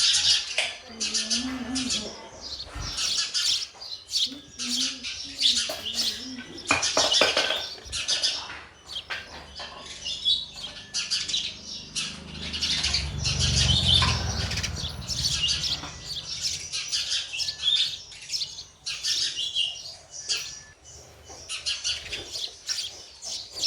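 Sparrows chirping in rapid, overlapping bursts, including the chicks' calls at the nest while they are being fed. A low rumble runs for a few seconds near the middle.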